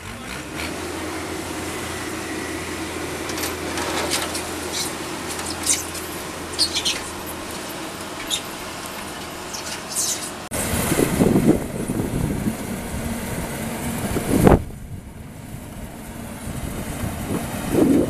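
Yanmar YH850 combine harvester's diesel engine running steadily as the machine works through a rice field. About ten seconds in, the sound turns louder and rougher, with one sharp thump a few seconds later.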